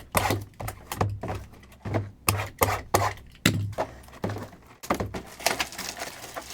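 Things being knocked against and set down on a tabletop: an irregular run of about fifteen sharp knocks and dull thuds.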